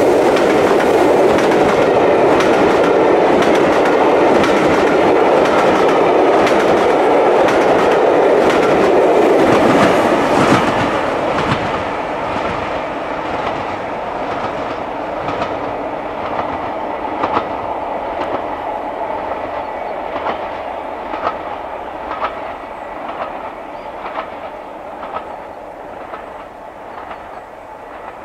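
Steam-hauled excursion train, double-headed by LMS Stanier 8F 2-8-0 48151 and Merchant Navy Pacific 35018, passing close by: the coaches' wheels clatter over the rail joints, loud for about ten seconds, then the sound drops away and fades steadily as the train draws off into the distance.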